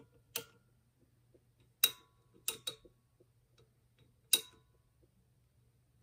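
Irregular sharp clicks and light metallic taps, about six in all, as the metal bulb shades on a floor lamp are handled, over a faint steady low hum.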